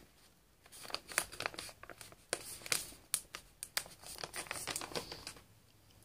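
Plastic snack pouch crinkling as it is handled and folded, a quick run of crackles from about a second in until near the end.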